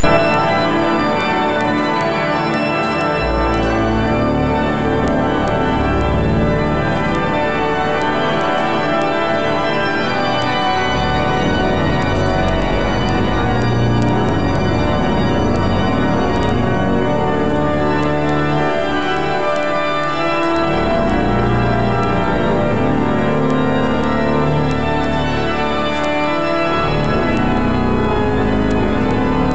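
Salisbury Cathedral's Father Willis pipe organ playing full sustained chords, with deep pedal bass notes coming and going.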